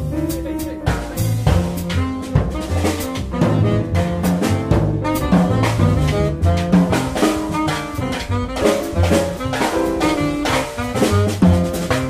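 Jazz quartet playing live: saxophone over piano, bass and drum kit, with busy drum and cymbal strikes under the melody.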